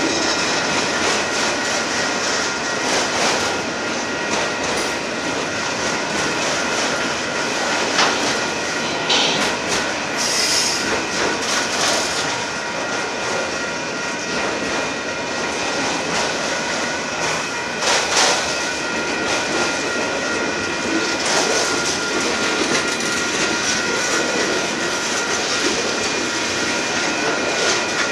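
Freight cars of a Union Pacific manifest train, autoracks and then boxcars, rolling past close by with a steady rumble of wheels on rail. A high wheel squeal holds throughout, and a few sharper clanks come about eight and again about eighteen seconds in.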